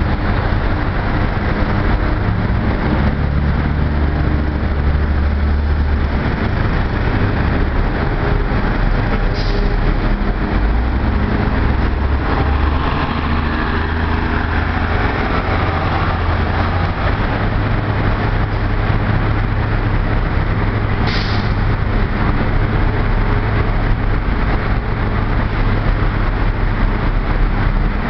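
Gillig Phantom and Advantage transit buses running and pulling past close by, their engines rising and falling as they move. Two short high-pitched squeals come through, about a third of the way in and again about three-quarters of the way in.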